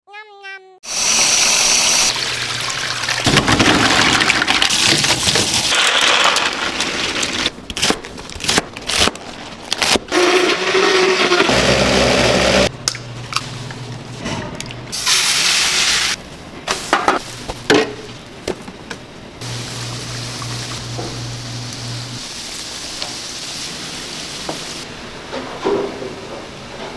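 Kitchen cooking sounds cut one after another: a rush of running or poured liquid, knocks and clatter of bowls and utensils, and a low machine hum in places. A short wavering tone sounds in the first second.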